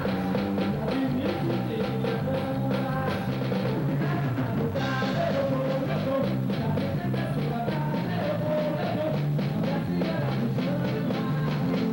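A band playing music: a drum kit keeping a steady beat under a repeating bass line and a melody line.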